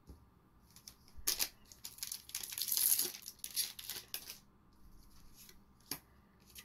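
A foil trading-card booster pack being torn open, a crackly crinkling tear about two to three seconds in, with light clicks of cards being handled before and after.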